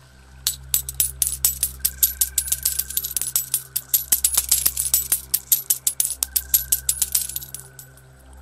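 A shower of metal coins dropping and clinking in rapid, dense succession. It starts about half a second in and thins out near the end, over a soft, steady sustained music drone.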